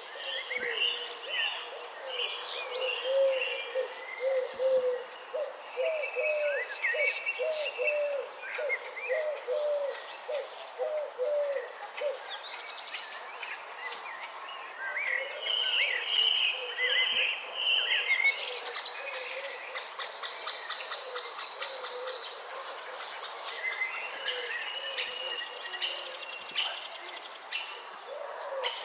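Garden or forest ambience: a steady, high-pitched insect drone under many chirping bird calls. For several seconds in the first half, a run of low, evenly repeated hooting notes joins in.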